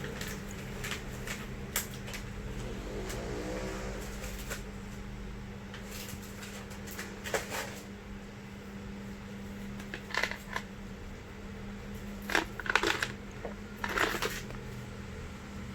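Packaging and parts of a coil-building tool kit being handled and unpacked: scattered clicks, taps and rustles, busiest in the second half, over a steady low hum.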